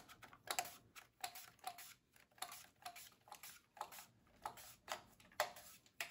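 Watermelon radish sliced on a white plastic handheld mandoline: quick repeated strokes across the blade, about two a second, each a short faint scrape.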